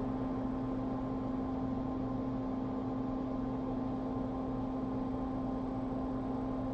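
Steady machine hum with a constant low tone and a faint even hiss, unchanging throughout.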